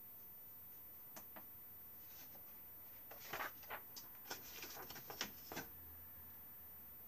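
A sheet of printer paper rustling and crackling as it is handled: two faint clicks a little after one second, then a quick string of short crackles from about three seconds in until just before six.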